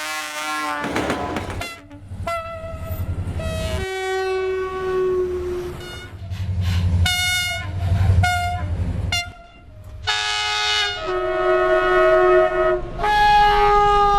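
Train horns sounding in quick succession, a string of separate blasts from different trains. Each blast is a steady sustained note or chord, several of them several-toned, with train running noise rumbling underneath some of them.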